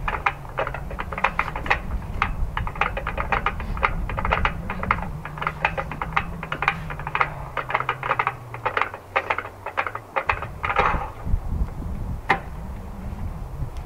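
Small gasoline engine of a homemade band saw sawmill running at a steady idle, with fast, irregular clicking over it. The engine stops about ten seconds in.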